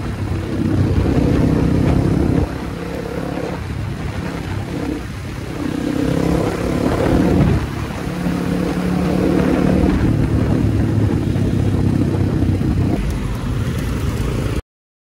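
Kawasaki D-Tracker 250's single-cylinder engine running on the move, its pitch climbing and dropping several times as the rider opens the throttle, shifts and eases off. The sound cuts off abruptly near the end.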